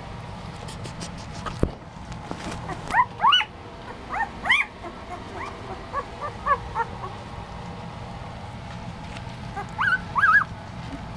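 One-week-old poodle puppies squealing and whimpering: short high-pitched cries that rise and fall in pitch, coming in clusters about three and four and a half seconds in, scattered squeaks around six to seven seconds, and a last burst near ten seconds.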